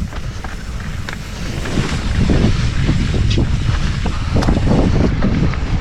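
Heavy wind buffeting the microphone as a mountain bike is ridden fast down a trail, with scattered knocks and rattles from the bike over rough ground. It gets louder about two seconds in.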